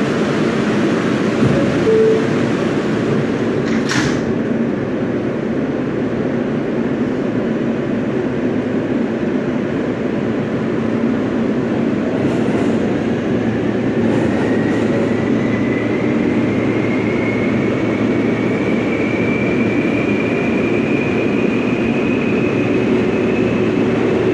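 Subway train running through a station, a steady loud rumble with one brief sharp sound about four seconds in. From about the middle its traction motors give a slowly rising whine as it gathers speed.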